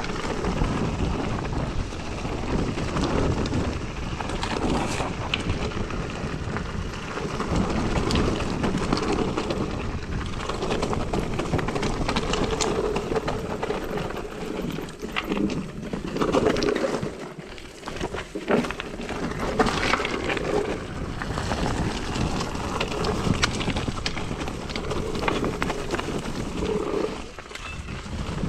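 Mountain bike in motion on a dirt trail: tyres rolling over rough ground, the bike rattling with frequent clicks and knocks, and wind noise on the microphone, rising and falling with the terrain.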